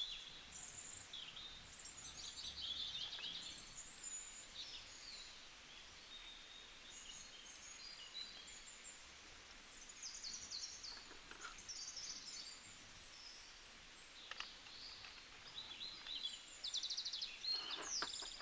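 Faint birdsong: several small birds chirping and trilling, their high calls overlapping, with a quick pulsed trill near the end.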